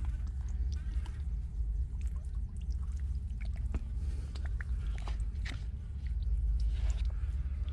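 Scattered wet clicks and squelches of a hand handling small fish on a lotus leaf and pulling them from shallow mud, over a steady low rumble.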